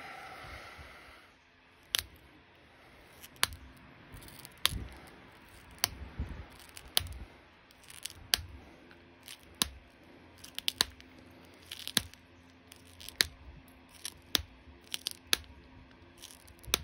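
Copper-tipped pressure flaker snapping small flakes off the edge of an opalite glass arrowhead preform: a sharp click about once a second as each flake pops free.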